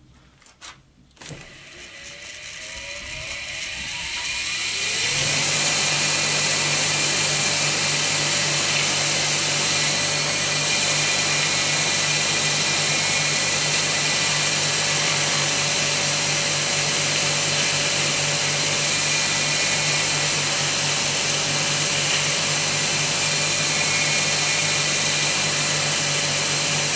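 Homemade polisher built from a washing machine's spin motor, which has no start capacitor: after a couple of clicks it is helped to start and spins up with a rising whine over about four seconds, then runs at a steady hum with a high hiss as a coin is held against its cotton felt buffing wheel.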